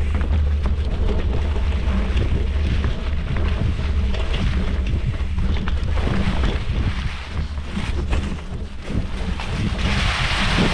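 Yeti SB115 mountain bike on Maxxis Minion DHR tyres riding singletrack: tyres rolling over dirt and rocks with frequent knocks and rattles, over a low rumble of wind buffeting the handlebar-mounted microphone. A brief hiss near the end.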